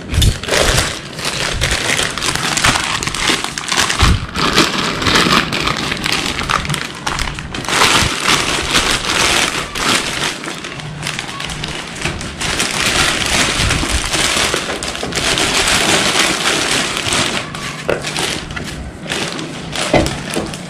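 Plastic wrapping crinkling and rustling as it is pulled and torn off a new motorcycle exhaust, with a few dull thumps.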